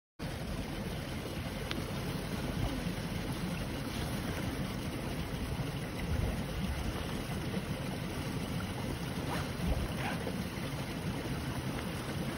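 Wind buffeting the microphone outdoors: a steady low rumble with hiss, with a few faint rustles.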